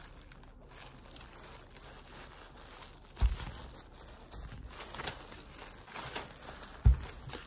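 Plastic film wrap crinkling and rustling as gloved hands peel it off a banana flower, with two short dull thumps, a little after three seconds in and near the end.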